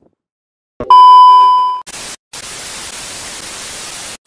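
TV test-pattern sound effect: a click, then a loud, steady, high beep lasting about a second, followed by about two seconds of TV static hiss with a brief break in it.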